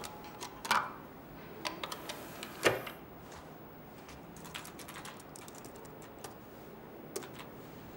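Typing and clicking on a computer keyboard in short, irregular taps, louder and more frequent in the first three seconds, then sparse and faint.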